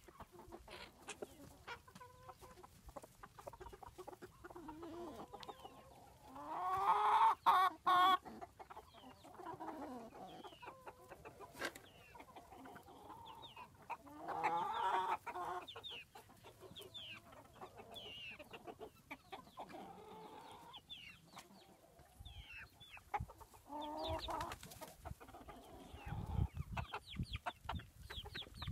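Flock of silkie chickens clucking and chirping as they come out of the coop. There are three louder drawn-out calls, the loudest about seven seconds in.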